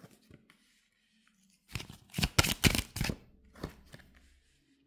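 Oracle cards being handled and laid on a cloth-covered table: a quick run of sharp card snaps and flicks about two seconds in, then a few lighter taps as cards are set down.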